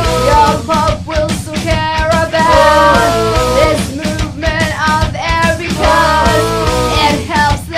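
Rock music playing: a melody line that bends in pitch over a steady beat.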